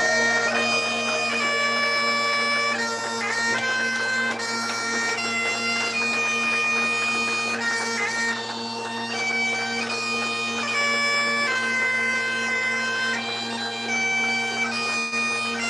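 Bagpipes playing a tune over steady drones, the melody notes changing every half second or so above the unbroken drone.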